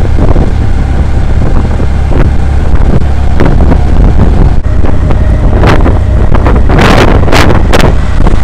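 Auto-rickshaw under way: a steady low engine and road rumble with wind buffeting the microphone, and a few louder gusts of wind noise near the end.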